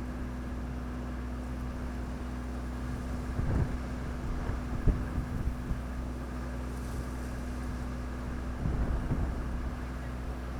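A steady low mechanical hum, like an engine running, with a few short rumbles of wind buffeting the microphone about a third of the way in and again near the end.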